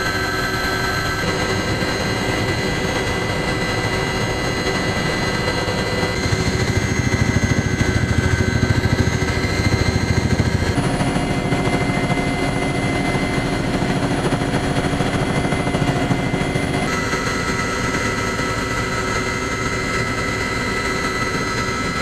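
Helicopter heard from inside the cabin in flight: a steady turbine whine over the fast thrum of the rotor. The mix of tones shifts abruptly a few times.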